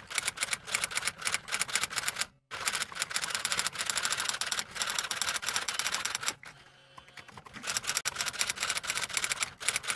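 Rapid typing clicks, several keystrokes a second, in the manner of typewriter keys, with a brief break a little over two seconds in and a longer lull about six and a half seconds in before the clicking resumes.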